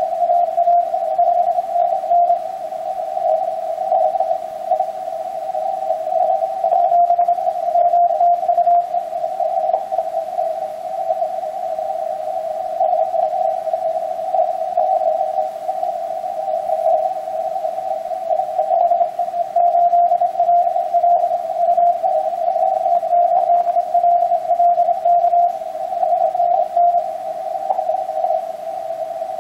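Morse code (CW) signals on the 80-metre band heard through an Icom transceiver: several keyed tones at nearly the same pitch overlap into a continuous jumble that wavers in strength, never falling silent.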